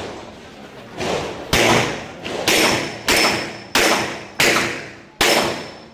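A string of about six 9mm pistol shots from a Glock 34 in rapid fire, roughly two-thirds of a second apart, each with a ringing tail.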